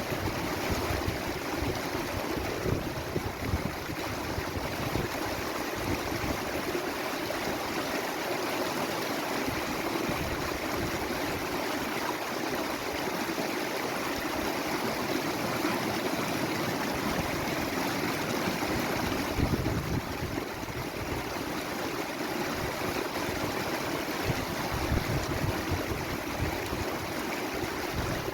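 Running water rushing steadily, with an uneven low rumble underneath.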